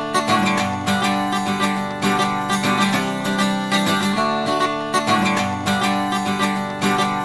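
Acoustic guitar music, strummed with a steady beat.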